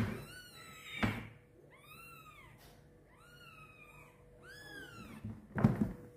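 Newborn kitten mewing: four high, thin cries, each rising and then falling in pitch, while its mother carries it in her mouth. Dull thumps as the mother cat bumps against and climbs into a plastic box, the loudest near the end.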